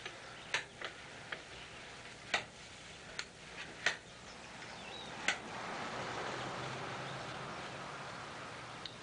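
Irregular sharp clicks, about eight in the first five seconds, from small objects being fiddled with in the hands. A soft, even hiss comes in from about halfway through.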